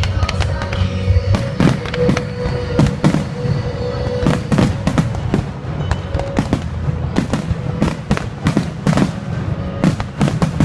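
Fireworks bursting in rapid succession, many sharp cracks and bangs close together, over music playing.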